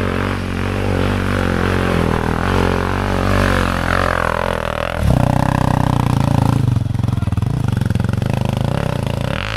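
Honda CRF300 Rally's single-cylinder four-stroke engine revving under load as the rear tyre spins in slippery clay mud. The engine note wavers and drops over the first few seconds. About halfway through it jumps to a louder, steady high-revving note that holds until near the end.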